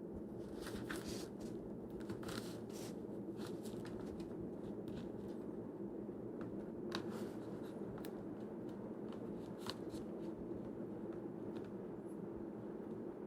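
Rigid Kydex holster shell being handled and worked, giving scattered light clicks and taps over a steady low hum.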